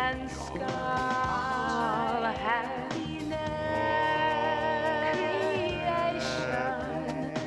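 A song: a singer's melody with long held notes over instrumental backing, with a wavering vibrato on a note about two and a half seconds in.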